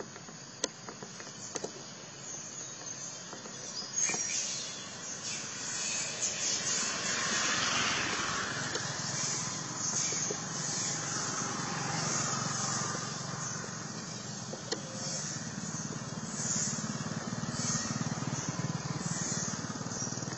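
A motor vehicle's engine, getting louder about four seconds in and then running on steadily.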